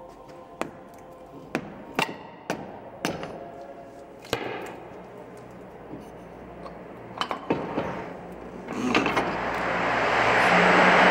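Sharp metallic knocks and clinks, about eight irregular strikes, as tools and parts are handled at a car's front wheel hub and suspension. Near the end, a loud rushing noise swells up and holds.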